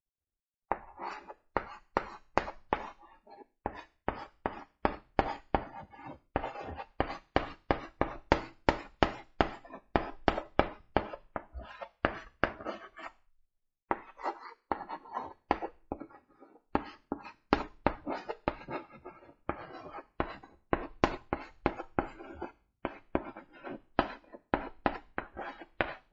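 Chalk writing on a blackboard: a quick run of short taps and scratches, one for each stroke of the letters, with a short break about halfway.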